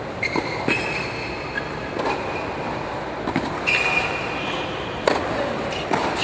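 Tennis ball bouncing and being struck, a series of sharp knocks with the loudest, a racket hitting a serve, about five seconds in. Intermittent high squeals of tennis shoes on the hard court run between them.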